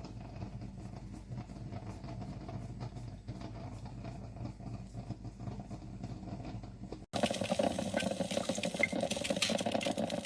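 Drip coffee maker brewing: water gurgling and hissing steadily, with a louder, hissier stretch starting abruptly about seven seconds in.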